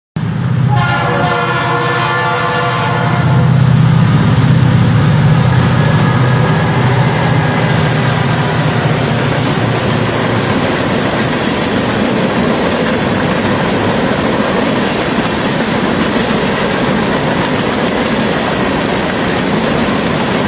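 A train horn sounds one long blast over a locomotive engine, then the train rolls on with a steady rumble and clatter of wheels on rail.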